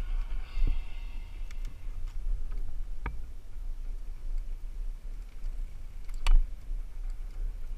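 Mountain bike rolling down a paved trail, with low wind rumble on the helmet camera's microphone. Through it run light ticking from the bike and three sharper clicks or rattles, the loudest about six seconds in.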